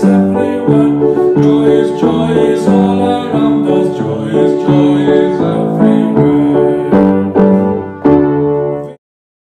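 Instrumental music: a steady run of struck, melodic notes that cuts off suddenly near the end.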